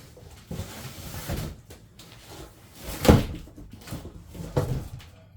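Knocks, bumps and rustling of boxed tool parts and cardboard packaging being handled, with the loudest knock about three seconds in.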